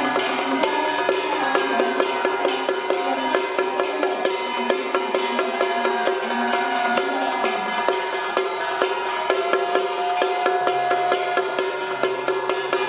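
Traditional Taiwanese temple-procession band of drums and gongs beating a fast, even rhythm, with a sustained melody line running over it.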